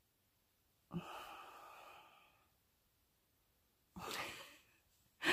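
A woman's long, breathy sigh about a second in, then a shorter breath out near the end.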